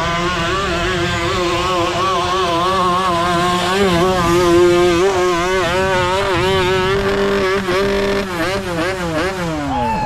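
Off-road hill-climb engine at high revs, its pitch wavering as the throttle is worked, then falling away near the end as the rider comes off the throttle.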